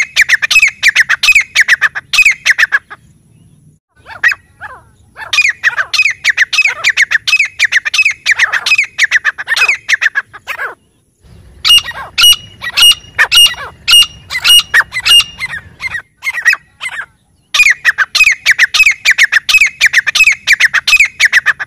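Grey francolin calling: loud bouts of rapid, repeated ringing notes, about four a second, broken by brief pauses, with a run of higher, steadier notes in the middle.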